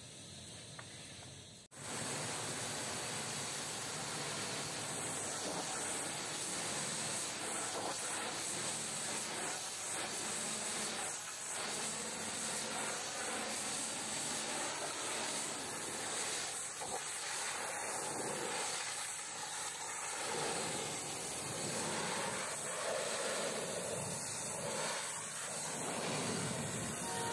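Pressure-washer jet spraying water onto a truck trailer's rear doors and bumper: a steady, dense hiss of spray that starts abruptly about two seconds in, after a short quieter stretch.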